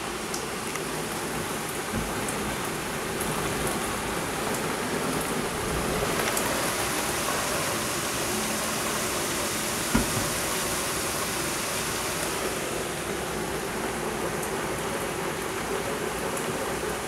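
Torrential rain pouring down, a dense steady hiss that swells a little about six seconds in, with a single short knock about ten seconds in.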